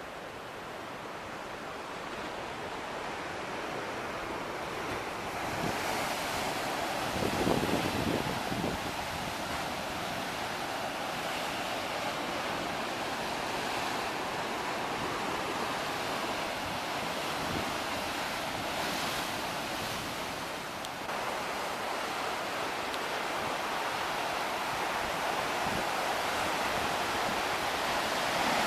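Sea surf: a steady rush of waves washing onto the shore, building over the first few seconds, with one louder breaking wave about seven seconds in. Wind buffets the microphone.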